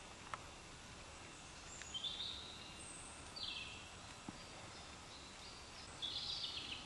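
Small songbirds singing short, high chirping phrases that step down in pitch, three times. The last phrase, near the end, is the loudest. A single faint click comes just after the start, over a steady low background hiss of the woods.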